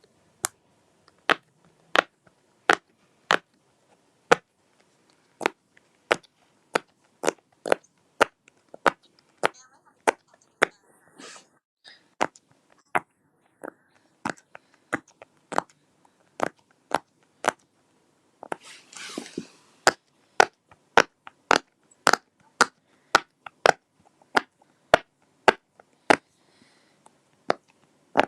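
Fidget toy being clicked or popped over and over, a sharp separate pop roughly every half second to second, with two short rustling noises about 11 and 19 seconds in.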